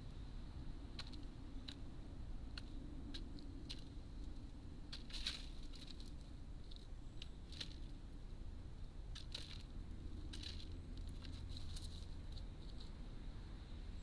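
Irregular sharp taps and clicks of a common blackbird pecking at food in a feeder dish, heaviest about five seconds in and again in a run near the end.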